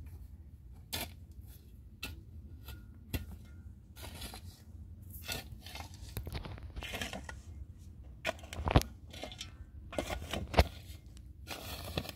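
Handling noises of close-up work: scattered taps, clicks and rustling, with two sharper knocks in the last few seconds, over a low steady rumble.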